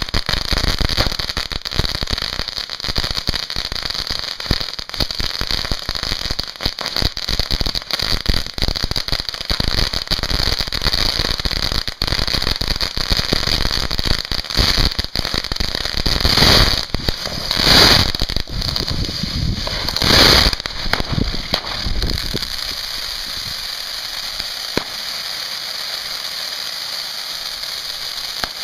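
Consumer ground fireworks going off: a dense, rapid crackling of many small pops, with three louder bangs about two-thirds of the way through. Then a steady hissing spray from a fountain near the end.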